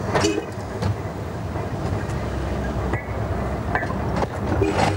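Cable-hauled Great Orme Tramway car running past on its street track: a steady low rumble of wheels on rails, with a few sharp clicks and brief wheel squeals about a quarter second in and again near the end.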